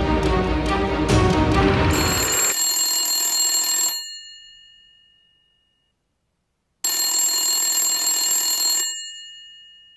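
Telephone bell ringing twice, each ring about two seconds long and dying away, with a silent gap of about three seconds between. Intro music ends just as the first ring begins.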